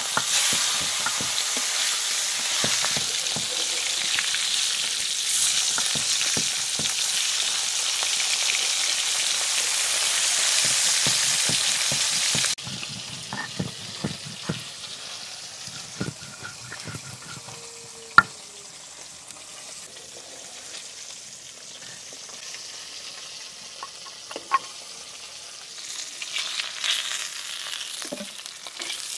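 Rohu fish pieces frying in hot mustard oil in an aluminium kadai, a loud, steady sizzle. About twelve seconds in the sizzle cuts off abruptly to a quieter stretch of scraping with a few sharp knocks as spices are ground on a grinding stone, and the sizzling comes back near the end.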